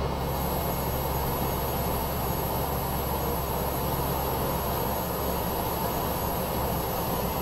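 Cessna 208B Grand Caravan's PT6A turboprop engine running at low taxi power, heard from inside the cockpit: a steady low drone with a thin, high turbine whine above it.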